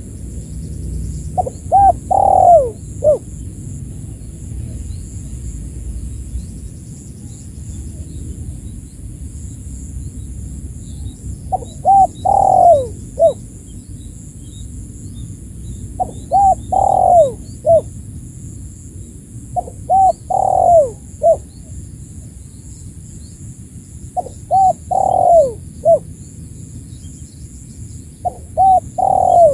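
Spotted dove (tekukur) cooing, six repeated phrases about every four seconds. Each phrase has two or three short coos, a longer, louder coo that falls in pitch, and a short final coo. It is the lure call used to challenge a rival dove.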